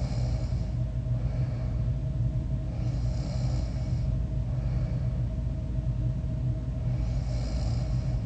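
A sleeping person snoring, one breath about every four seconds, three in all, over a steady low hum.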